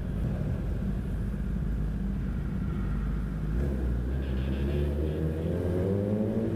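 Kawasaki sport bike's inline-four engine running at low revs inside a parking garage, then revving up in a steady rise in pitch from about halfway through as the bike accelerates down the ramp.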